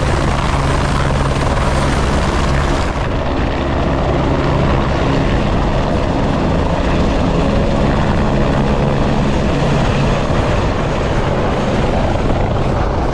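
Light helicopter lifting off from a helipad and hovering just above it, its rotor and engine running loud and steady throughout.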